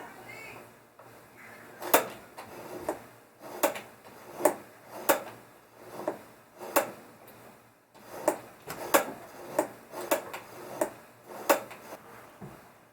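Universal gas pedal pumped over and over, the throttle cable pulling open the LS throttle body, with a sharp mechanical clack about once or twice a second as the linkage snaps back; the engine is not running.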